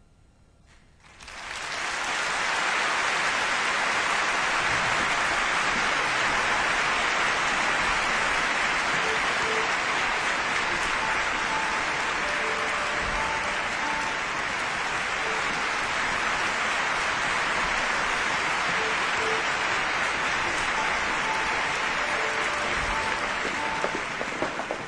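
Large audience applauding, starting suddenly about a second in and then holding steady.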